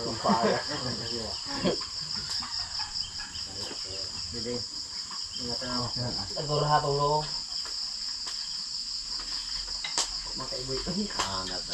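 Steady chorus of insects, a high, rapidly pulsing trill that never stops, with short snatches of voices twice and a single click near the end.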